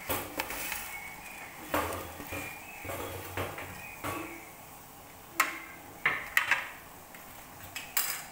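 A pot and utensil clattering: scattered sharp clinks and knocks, about a dozen in all, as dry noodles go into a pot of boiled water.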